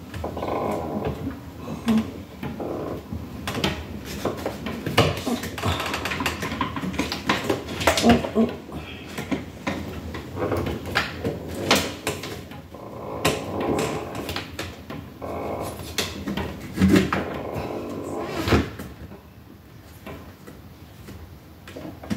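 Sharp clicks and knocks as a door sweep is handled and fitted along the bottom edge of a door, over an irregular, low, voice-like sound that stops a little before the end.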